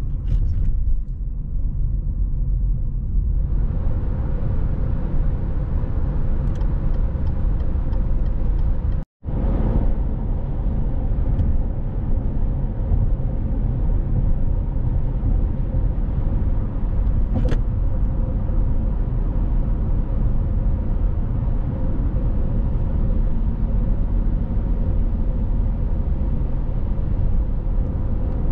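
Road noise inside a moving car's cabin: a steady low rumble of tyres and engine. A few seconds in a brighter hiss joins the rumble, and the sound drops out for an instant about nine seconds in.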